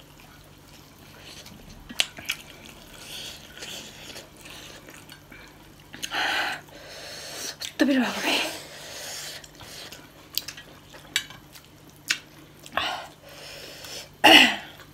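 Eating sounds at the table: scattered wet mouth clicks and smacks from chewing and fingers in rice. In the middle come a couple of loud breathy gasps and sighs, one ending in a short falling voiced note, as a diner reacts to the heat of very spicy noodles.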